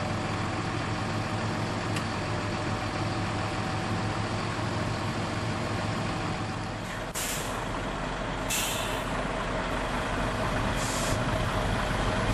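Valtra tractor's diesel engine running steadily. After a change in the sound about seven seconds in, heavy machinery runs on and a lorry's air brakes give three short hisses over the last five seconds.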